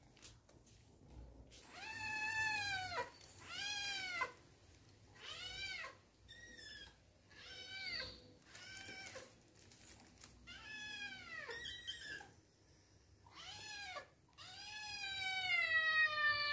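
Kittens meowing over and over to beg for food: about ten separate meows, each rising and then falling in pitch. The last meow is the longest and loudest.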